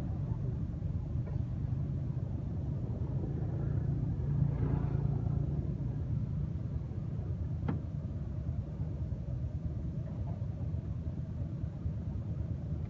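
Steady low background rumble, with one faint sharp click about three-quarters of the way through.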